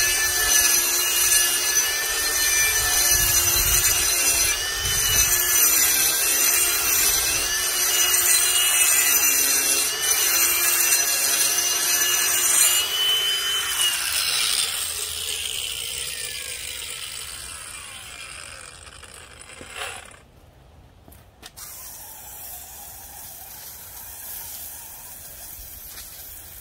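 Ryobi P423 brushless cordless angle grinder with a diamond blade grinding concrete, its motor whine wavering as the load changes. About halfway through it is switched off and the blade spins down with a falling whine, followed by a single click.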